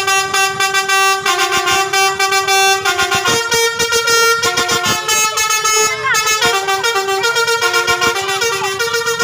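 Basuri 'telolet' multi-trumpet musical bus horn playing a tune, its held notes stepping between a few pitches with a fast stuttering pulse.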